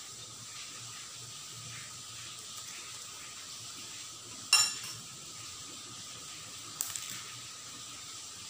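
A metal spoon clinks sharply against a ceramic bowl about halfway through, ringing briefly, and a lighter clink follows about two seconds later, over a steady background hiss.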